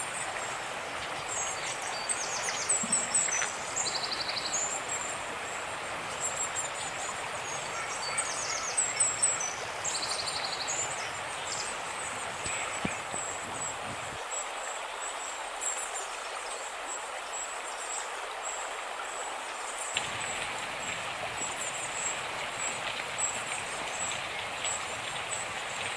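Steady rush of the swollen, flooding Dikhow river. Birds chirp over it, most often in the first half, and insects keep up a steady high-pitched drone.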